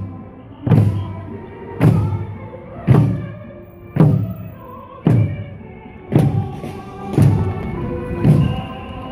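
A team of marching drummers striking Korean buk barrel drums together in a steady beat, a heavy booming stroke about once a second, eight strokes in all, with music sounding underneath.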